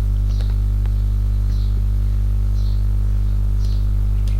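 Steady electrical mains hum at about 50 Hz with its overtones, picked up by the recording chain. A few faint clicks and soft high chirps come roughly once a second.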